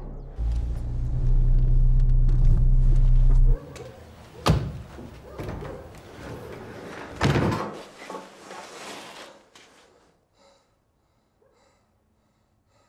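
A loud low rumble cuts off abruptly about three and a half seconds in. A sharp thud follows, and then, about seven seconds in, an up-and-over garage door is pulled down and bangs shut. The sound then fades to near silence.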